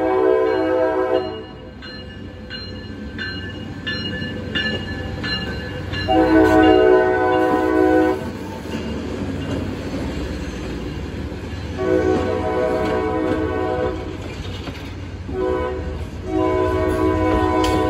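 Horn of an RP20BD genset locomotive sounding the grade-crossing pattern as a short freight train rolls past. A horn blast cuts off about a second in, then come two long blasts, a short one and a long one held to the end. Between the first blasts a bell rings about twice a second, over the low rumble of the locomotives and rolling cars.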